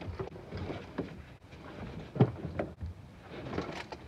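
Knocks, bumps and scrapes as a deer carcass is hauled up into a pickup truck bed, with one sharp thump about two seconds in.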